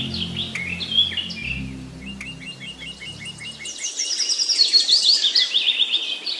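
Wild birds chirping and singing in quick series of short notes, with a fast run of falling high notes from about four seconds in. Low background music notes fade out a little past halfway.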